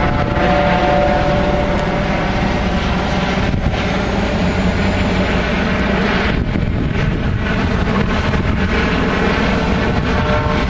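Police helicopter flying low over the neighbourhood, a steady, loud rotor and engine drone.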